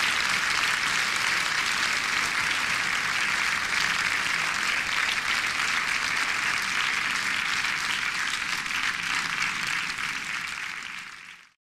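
Theatre audience applauding steadily, a dense patter of many hands clapping, fading out near the end.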